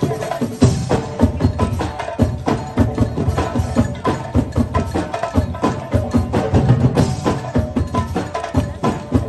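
Percussion band playing a fast, driving rhythm on large bass drums and tall standing drums, with sharp higher strikes over the deep drum strokes.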